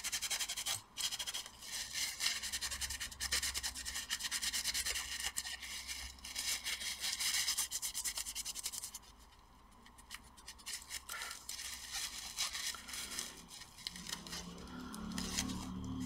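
Alcohol-dampened tissue rubbing old thermal paste off a laptop's copper heatsink, a dense scratchy rubbing that pauses about nine seconds in and resumes in shorter strokes.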